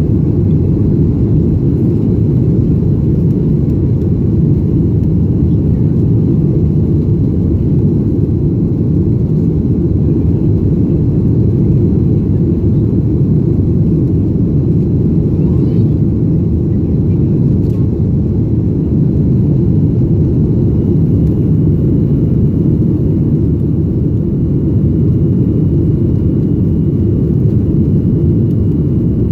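Steady low roar inside the cabin of a Boeing 737 climbing just after takeoff: its jet engines at climb power mixed with rushing airflow, heard from a seat beside the wing.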